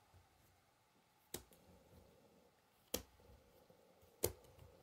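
Thin cardboard code cards being picked up off a towel and tapped onto a stack in the hand: three short sharp clicks, roughly a second and a half apart, with faint card rustle between.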